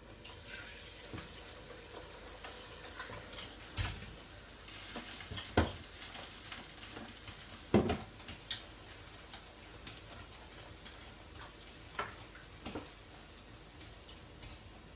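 A spoon stirring a pot of egusi soup on the stove, with a soft sizzling simmer and several sharp knocks of the spoon against the pot, two of them louder, about a third and halfway through.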